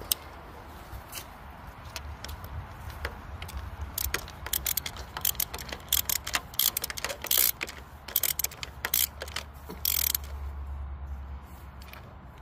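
Ratchet wrench clicking in irregular runs as a spark plug is screwed in and tightened, from about two seconds in until near the end, over a faint low hum.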